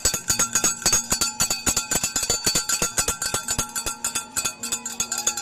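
Cowbells being struck rapidly and unevenly, several clanging at once with no shared beat.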